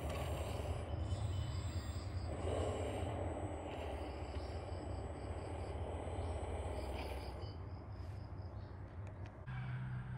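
A 1/14-scale RC hydraulic wheel loader crawling over dirt, running with a steady low hum, while insects chirp in short repeated trills in the background. The sound changes abruptly shortly before the end.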